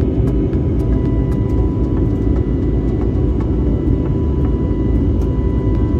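Steady low rumble of jet engines and rushing air heard inside an airliner cabin during the climb, with faint steady higher tones above it.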